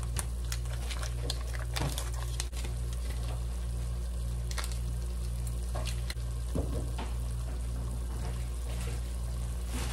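Butter and sliced onions sizzling in a pan as the butter melts, with scattered small crackles and pops over a steady low hum.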